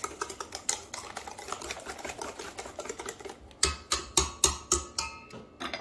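Wire whisk beating thin cake batter in a stainless steel bowl, quick scraping and clicking strokes against the metal. About three and a half seconds in, the strokes slow and get louder, each with a light metallic clink.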